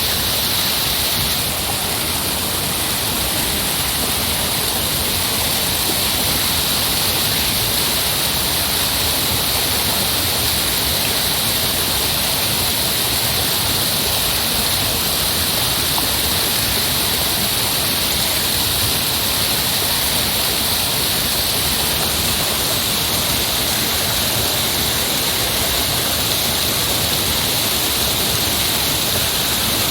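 Heavy rushing water, a steady, unbroken roar with a bright hiss on top.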